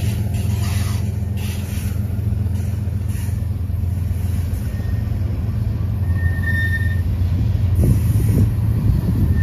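Steady low vehicle rumble, with a brief high squeal tone about six and a half seconds in and the rumble growing rougher near the end.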